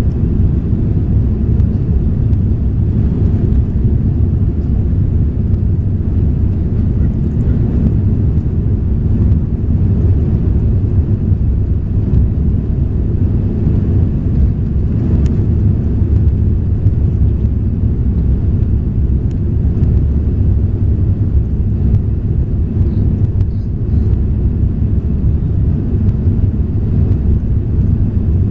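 Steady low roar inside the cabin of an Airbus A340-300 climbing out after takeoff: its four CFM56 engines and the rush of air over the airframe.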